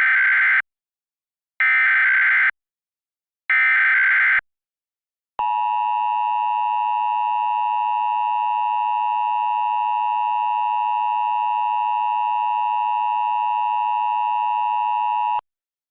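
Emergency Alert System SAME header: three short bursts of warbling data tones about two seconds apart, encoding a Required Monthly Test. They are followed by the EAS attention signal, a steady tone held for about ten seconds that cuts off abruptly.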